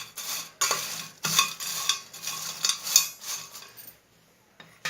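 A spoon scraping and clattering against a bowl as fried potato fingers are tossed with salt and pepper powder, in quick irregular strokes that stop about four seconds in.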